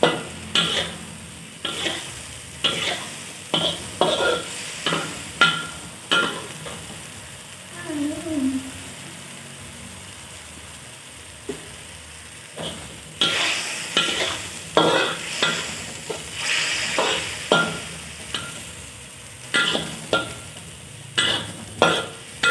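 Metal spatula scraping and knocking against a wok as quail eggs, chillies and shallots are stir-fried, with a light sizzle of the food in the oil. The strokes come about twice a second, pause for a few seconds midway, then resume.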